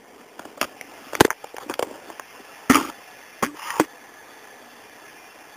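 A handful of sharp, irregular knocks and clicks, about six in a few seconds, the loudest about a second in, over a quiet background.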